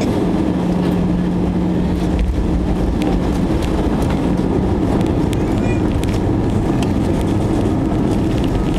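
Airbus A320-200 on its landing roll, heard from the cabin over the wing: a loud, steady roar of the jet engines together with the rumble of the wheels on the runway. A low hum runs through the first few seconds.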